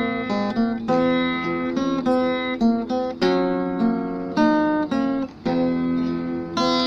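Instrumental background music on plucked strings: a melody of notes and chords that ring and fade one after another.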